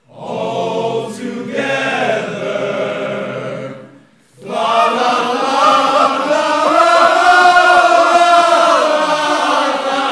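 All-male a cappella choir singing, with a short break about four seconds in, then a long held chord with one voice bending above it.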